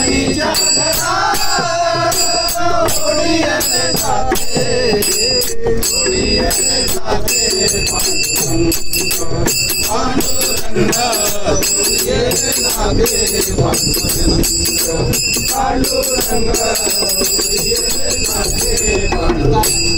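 Voices singing a Marathi abhang (devotional bhajan) together, kept in rhythm by a pair of brass hand cymbals (taal) struck steadily, their ringing heard over the singing, with hand clapping.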